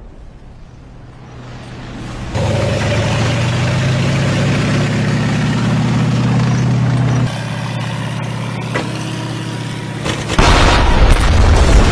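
Sound effects for an animated weapon launcher: a steady low mechanical hum with a whir begins a couple of seconds in and drops back about two-thirds of the way through, then a loud rushing blast starts near the end.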